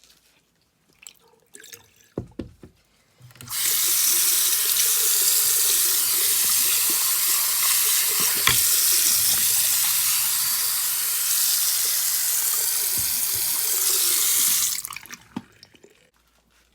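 Kitchen tap turned on a few seconds in, running water into a sink for about eleven seconds, then shut off near the end, after a couple of knocks.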